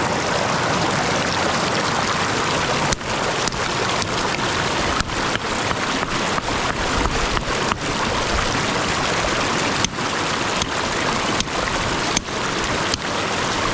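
Steady rush of stream water, with several brief dips in level.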